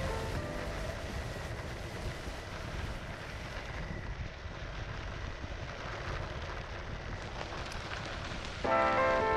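Electric skateboard's 120 mm Cloudwheels rolling over a dirt and gravel path: a steady, rough rolling noise with low rumble and wind on the microphone. Music with a steady beat comes back in near the end.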